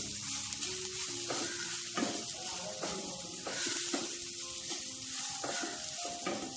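Wooden spatula scraping and stirring grated coconut, shallots and spice powders in a hot oiled nonstick pan, with repeated scrapes over a steady sizzle.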